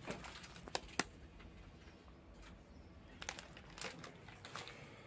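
Faint crinkling and rustling of a foil-lined snack bag of Cheez-It crackers being handled, with a few sharp crackles about a second in and again near three seconds.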